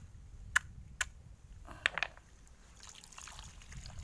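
A stone knocking on the shell of a grilled sea urchin: two sharp taps in the first second, then a short crunching crackle about two seconds in as the shell breaks, and fainter crackling as it is pulled apart.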